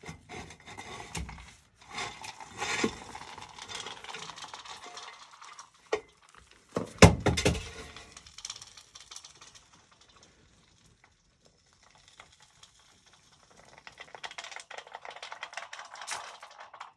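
Gravel being dug and scraped out by hand around a buried sewer pipe: irregular scraping and clattering of stones, with a sharp loud knock about seven seconds in, a quiet spell, then light rattling of gravel near the end.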